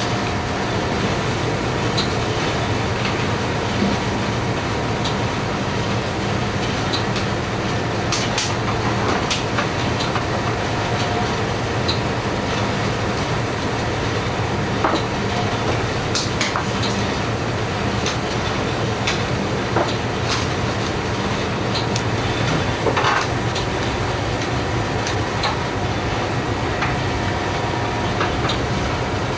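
Steady mechanical rumble and hum of a push boat's engine heard inside its galley, with scattered clicks and clinks of kitchen utensils.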